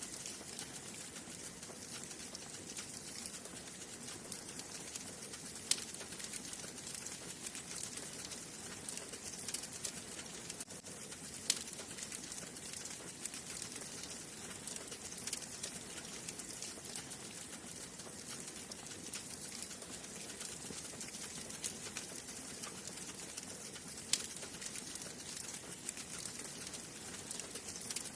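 Wood fire burning in a fireplace: a steady hiss and dense fine crackling, with a few louder pops standing out, about 6, 11 and 24 seconds in.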